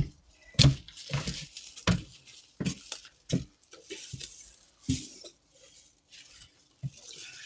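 Irregular thumps and scuffing, roughly one a second, close to the microphone.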